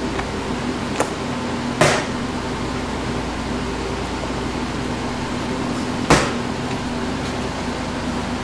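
A steady machine hum, like an air conditioner or a fan, with three short knocks: one about a second in, a louder one just before two seconds, and the loudest about six seconds in.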